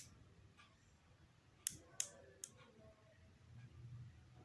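Near silence: room tone with a few short sharp clicks, one at the start and three in quick succession about a second and a half to two and a half seconds in.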